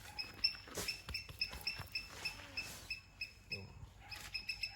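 A bird chirping over and over in short notes at one steady pitch, about four a second, with a few soft knocks.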